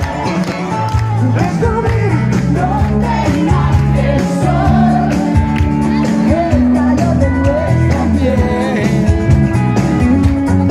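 Live band playing a song at full volume, a woman singing lead into a microphone over bass, guitar and a steady drumbeat.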